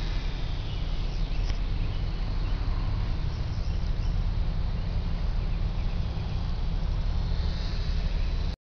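Outdoor ambience of wind rumbling on the microphone, with insects and birds chirping faintly. It cuts off suddenly near the end.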